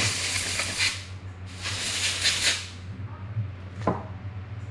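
Two short hissing bursts from a handheld aerosol spray can, each about a second long with a half-second pause between. A small tap follows about four seconds in.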